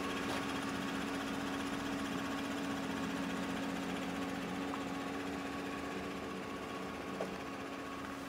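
The 2014 Chevrolet Silverado 1500's V6 engine idling, a steady, even hum.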